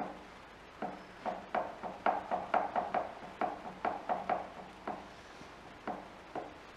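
A run of sharp metallic clicks, about four a second and unevenly spaced, as the boring head on a milling machine is adjusted by hand with a hex key, over a faint steady hum. The clicks thin out after about five seconds.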